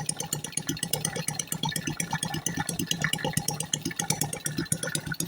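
Freshly rebuilt engine running at a steady idle with a fast, even pulse, run to check that the oil pump is delivering oil.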